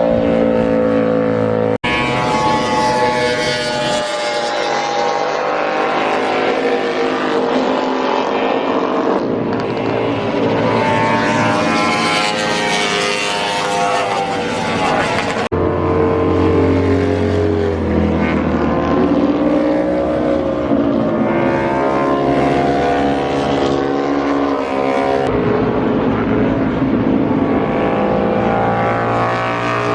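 Motorcycle engines running and revving, their pitch rising and falling, in several spliced recordings that change abruptly about two seconds in, halfway through and near the end.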